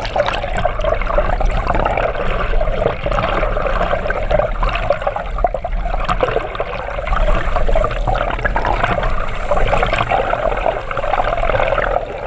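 Sea water rushing over a submerged action camera's housing: a loud, continuous, muffled wash with a steady low hum beneath it.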